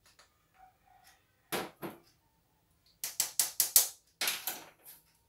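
A series of sharp taps of a plastic measuring spoon knocking against a glass jar: two taps, then a quick run of about five about three seconds in, then a few more.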